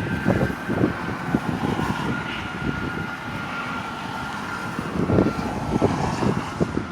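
Wind buffeting the microphone over a truck's running noise, in uneven gusts, with a thin steady whine that slowly drops in pitch.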